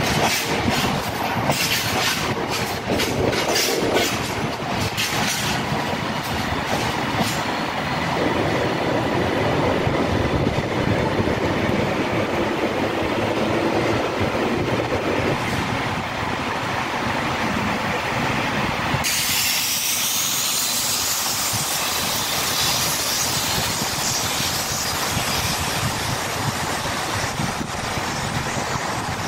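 Freight wagons rolling past, their wheels clicking over rail joints. Then a Class 397 electric multiple unit runs with a steady rumble, and from about two-thirds in a high hiss and a rising whine as it pulls away.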